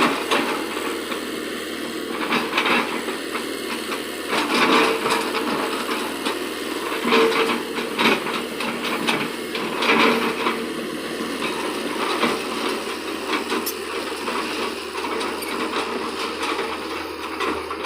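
Hitachi excavator working: its engine runs steadily under repeated clanks and scrapes, loudest about two, five, seven, eight and ten seconds in.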